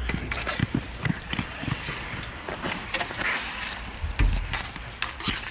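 Roller hockey play: irregular sharp clacks and knocks of sticks and puck, with a low rumble about four seconds in.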